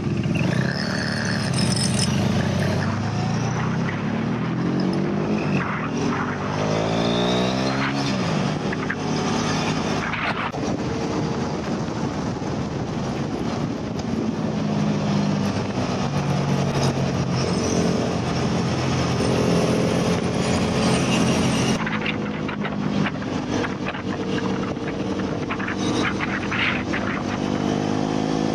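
KTM RC390's single-cylinder engine pulling hard from a standstill, the revs climbing and dropping again through several upshifts, then held at high speed under heavy wind rush on the microphone. The sound changes about three-quarters of the way through as the bike slows for a corner.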